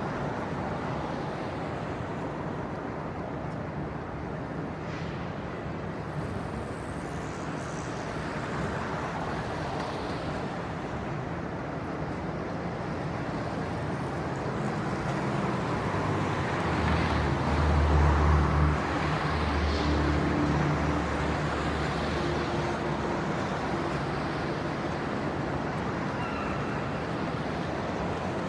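Light city traffic ambience: a steady rumble of passing cars. About halfway through, a deeper engine drone from a heavier vehicle swells, passes and fades.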